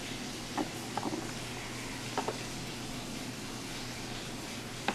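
A few faint, light clicks of small plastic key fob parts being handled, over a steady hiss.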